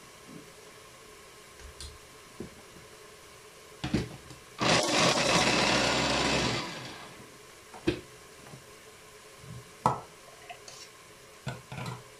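Electric mini chopper running in one burst of about two seconds, chopping pieces of onion, with sharp clicks and knocks of the chopper being handled before and after.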